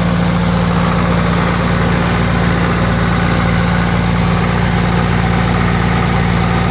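Kohler 30R081 diesel generator set running steadily: its Hercules D-2300 four-cylinder, water-cooled diesel engine turns at a constant 1800 RPM, driving the alternator.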